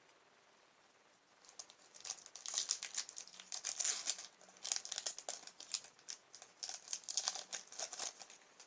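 Foil Pokémon booster pack wrapper crinkling as it is torn open. It starts about one and a half seconds in and comes in three bouts.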